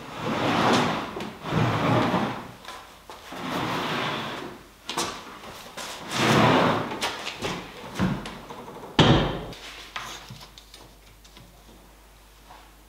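Heavy live-edge ash slab dragged and turned across a workbench top: several scraping slides of about a second each, then two knocks, the second the loudest.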